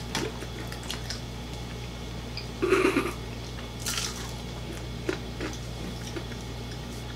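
People eating crispy fried chicken by hand: scattered small crackles and wet chewing noises, with two louder short bursts about three and four seconds in.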